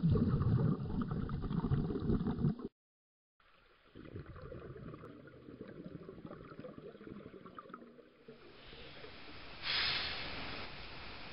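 Underwater bubbling and gurgling from a breath-holding swimmer's exhaled air, loud at first, then cut off by a short silence about three seconds in before softer bubbling resumes. Near the end, a louder hissing rush starts.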